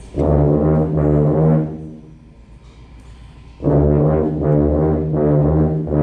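Concert band with brass to the fore playing a loud held chord that dies away after about two seconds. After a short pause the band comes back in loud with pulsing chords.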